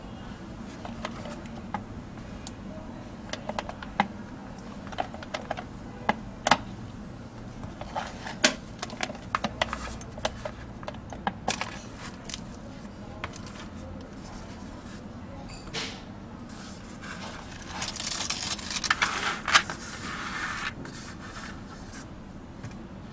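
Hands handling a hard metal-framed, rhinestone-covered evening clutch: scattered sharp clicks and taps of the metal frame and crystals, then, late on, about two seconds of jingling metal rattle from its gold shoulder chain.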